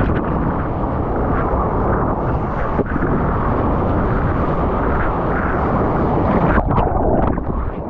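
Steady rushing roar of ocean surf and wind on a surfer's GoPro, with a few sharp crackles near the end.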